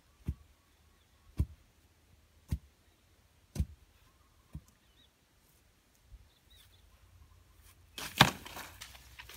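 Dull thuds of a bamboo pole rammed down into the soil around a wooden fence post, tamping it firm: five strikes about a second apart. Near the end comes a louder clatter and rustle as the pole is dropped into the grass.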